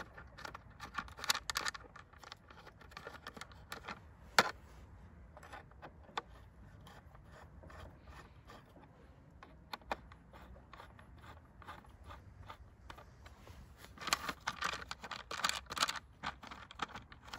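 A metal combination wrench scraping and clicking against the screws of a brushcutter's plastic guard as they are undone, with scattered sharp clicks and a busier spell of scraping and rattling near the end.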